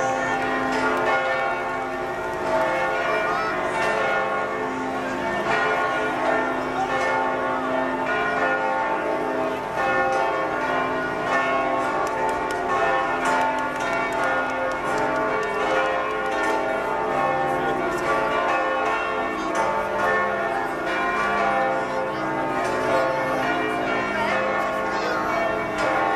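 Church bells pealing, many bells ringing over one another without pause, with crowd voices beneath.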